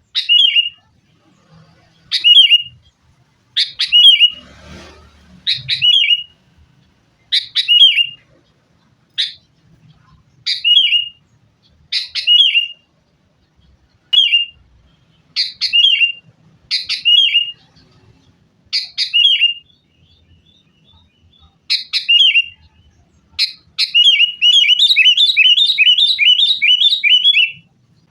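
Sooty-headed bulbul (kutilang) calling: short, quick phrases of a few chirpy notes repeated every second or two. Near the end comes a fast run of about a dozen notes.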